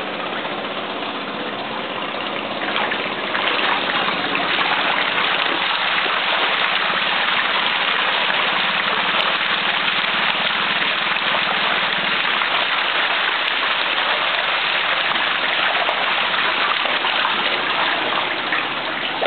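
A crowd of farmed fish thrashing and splashing at the surface in a feeding frenzy as feed is thrown into the cage: a dense, crackling splash that swells about three seconds in and keeps up, easing near the end.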